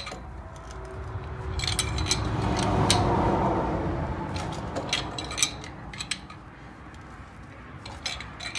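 Ratchet clicking in short bursts as a screw-type caliper piston compressor is cranked, pressing a rear disc brake caliper piston back into its bore. A broad noise swells and fades in the first half, peaking about three seconds in.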